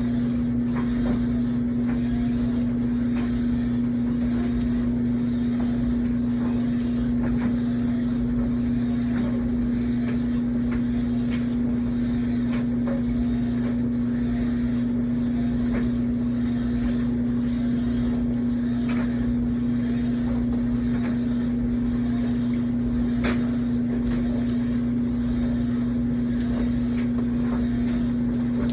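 GE Hydrowave top-load washing machine groaning during agitation: a steady low hum held at one pitch, with faint scattered clicks. The owner is unsure whether this groan is normal.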